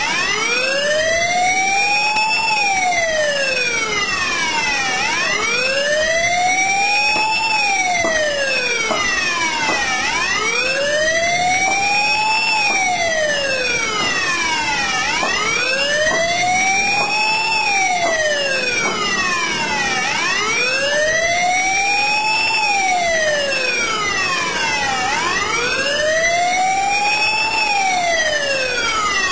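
Emergency vehicle siren on a slow wail, rising and falling evenly about once every five seconds without a break, over low street noise.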